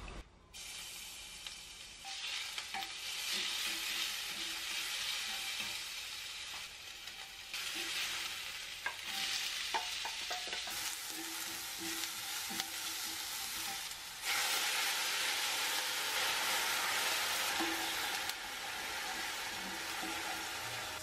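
Sliced onions and dried chilies sizzling in hot olive oil in a cast-iron pan, stirred with a wooden spatula. The sizzle gets louder in steps and is loudest in the last third, with a few light knocks partway through.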